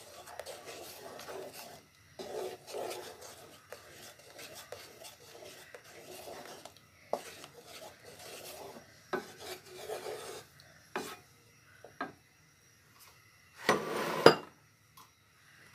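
Wooden spoon scraping and rubbing around a nonstick pan of thickening chocolate mixture, in repeated strokes of a second or two each, with a few sharp knocks against the pan. A louder clatter comes near the end.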